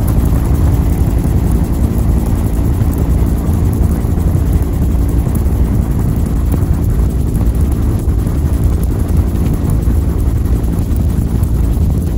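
Bell UH-1 Huey helicopter in flight, its turbine engine and rotor running steadily: a loud, unbroken low drone heard from aboard the aircraft.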